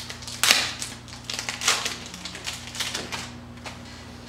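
The wrapper of a baseball card pack being torn and crinkled open and the cards pulled out: a run of irregular crackles and rustles, loudest about half a second in.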